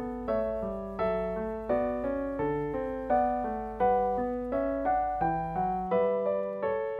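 Background piano music: a steady flowing pattern of struck notes, about one or two a second.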